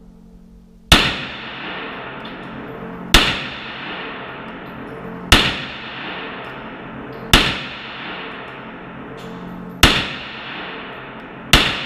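Six 9mm shots from a Glock 17 pistol, fired singly about two seconds apart, each shot echoing off the concrete walls of an indoor range.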